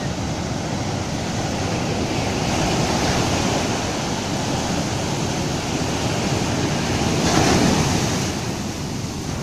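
Ocean surf breaking and washing up a sandy beach, the foaming swash running over the sand and draining back as backwash. The rush swells twice, loudest about seven and a half seconds in.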